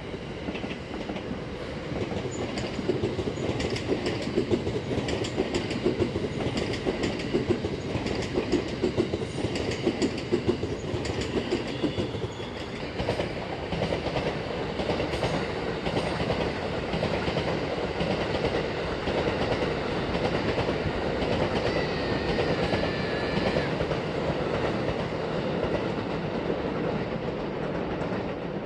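Electric trains running over the multi-track Tokaido main line: first a JR West local train clattering over rail joints and points in a rapid, uneven clickety-clack, then a steadier rumble as a Thunderbird limited express electric train approaches, with a brief faint high whine about two-thirds of the way through.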